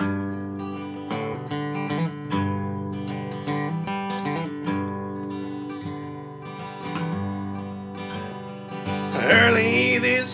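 Acoustic guitar played solo, a strummed country intro with ringing chords and bass notes. A man's singing voice comes in about nine seconds in.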